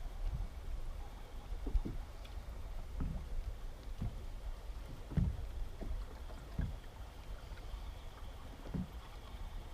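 Small fishing boat on the water: a steady low rumble with irregular soft knocks and slaps against the hull, the strongest about halfway through.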